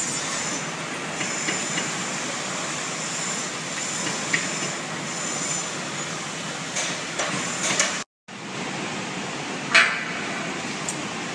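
Steady wind and road noise from riding a bicycle through city traffic. After a brief break, a single sharp metallic clank comes about ten seconds in.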